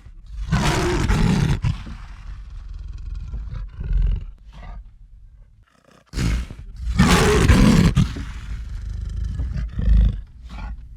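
Lion roaring: two long, loud roars, the first about half a second in and the second about six seconds in, each tailing off into a run of shorter grunts.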